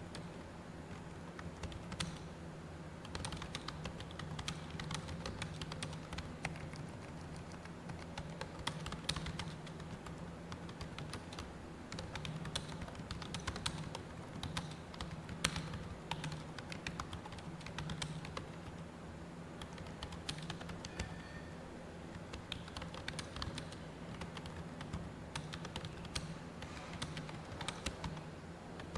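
Fast, continuous touch-typing on a computer keyboard during a timed typing test, at about 55 words a minute. The key clicks come in a dense run, with a few louder strokes among them, over a steady low hum.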